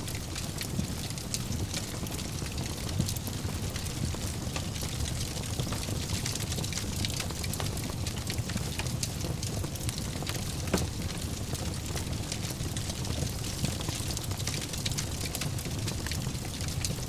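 Wood fire burning in a fireplace: a steady low rumble of flames under many small crackles and snaps, with one sharper pop about eleven seconds in.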